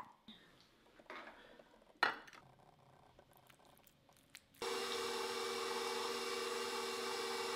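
A few quiet clicks and scrapes of a metal spoon on the meat grinder's tray, with one sharp knock about 2 seconds in. Then the KitchenAid stand mixer's motor switches on suddenly, driving the meat grinder attachment with a steady hum.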